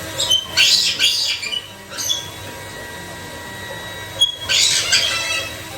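White-bellied caique squawking: two loud runs of harsh, high calls, one near the start and one past the middle, each lasting about one to two seconds.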